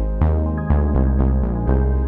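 Background music: synthesized electronic notes with a strong bass, a new note struck about every half second.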